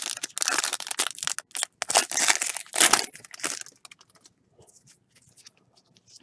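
Foil wrapper of a baseball card pack being torn open and crinkled: a dense crackle for about three and a half seconds, then only faint rustling as the cards are handled.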